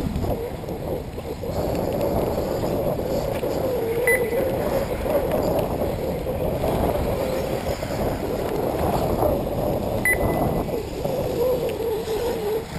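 1/8-scale electric RC buggies racing, their whine rising and falling in pitch over heavy wind noise on the microphone. Two short high beeps sound about six seconds apart.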